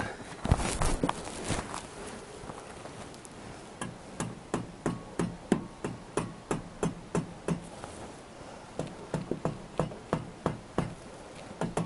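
Rubber hammer knocking on a tool under a motorcycle engine to shock loose a stuck bolt. A few blows come first, then from about four seconds a steady run of about two blows a second.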